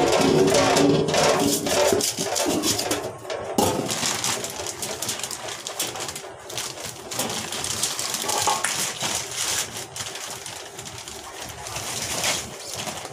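Thin plastic bag crinkling and rustling as taro stalks are pulled and handled, with knife scrapes on the stems. A low pitched sound runs through the first three seconds.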